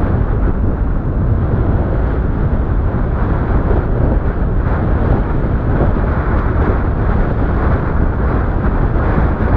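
Strong wind buffeting the microphone of a rider on a moving e-bike: a loud, steady low rumble with no clear motor tone.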